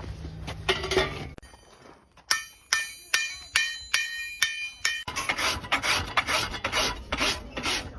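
Farrier's rasp filing a horse's hoof in quick scraping strokes. In the middle come about seven sharp, ringing metal taps, then the rasping resumes at about three strokes a second.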